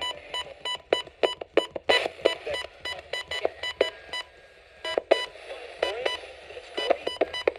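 Radio reception static: irregular crackling clicks over a faint steady buzz.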